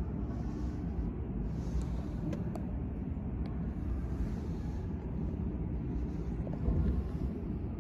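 Steady low rumble of background noise, with a few faint ticks between about two and three and a half seconds in.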